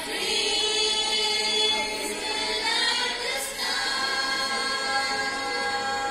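A choir of children singing together in long held notes, changing note about three and a half seconds in.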